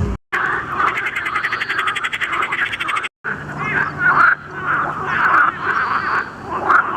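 Frogs calling in a chorus: first a fast, rattling trill of many clicks a second, then, after a brief break about three seconds in, a run of separate croaks repeated about twice a second.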